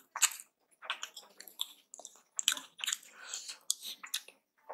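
Aloo paratha being torn apart by hand and chewed: irregular short crackly bursts with brief pauses between them.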